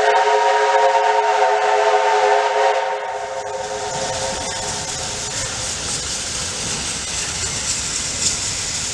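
Steam locomotive J549, a Victorian Railways J-class, blows a long whistle of several tones sounding together, held for about three seconds and then dying away. Steam hiss and the working of the approaching locomotive follow.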